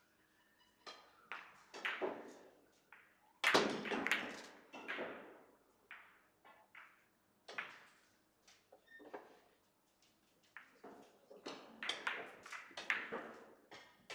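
Russian pyramid billiard balls clacking: a long series of sharp knocks of the large balls striking one another and the cue, each with a short ring, the loudest about three and a half seconds in.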